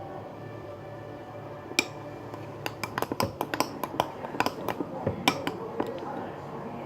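A spoon clinking against a bowl while stirring and mashing ice cream: one sharp click about two seconds in, then a run of irregular clinks, several a second, for about three seconds.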